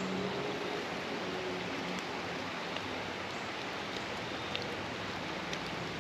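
Creek water flowing, a steady rushing with a few brief low gurgles.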